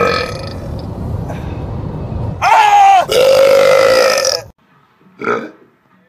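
A man belching loudly: a long, drawn-out burp that carries on for the first couple of seconds, then a second long burp about two and a half seconds in that slides down in pitch and holds for about two seconds.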